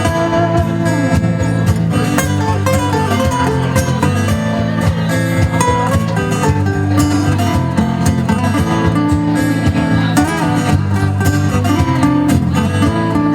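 Live band playing, with guitar to the fore and no singing.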